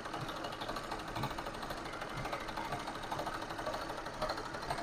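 Zigzag sewing machine stitching steadily through cloth, an even run of rapid needle strokes. It is sewing a test row of zigzag stitches after the thread tension spring has been adjusted, to check that the stitch comes out neat.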